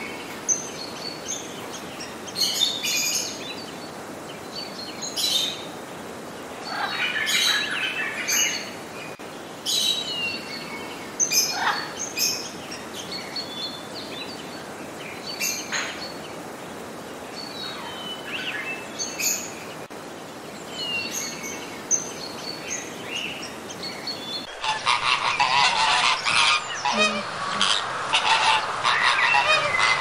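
Scattered short bird calls and chirps, several falling in pitch, with a few sharp clicks. About 24 seconds in they give way to a flock of flamingos honking and chattering continuously, louder and dense.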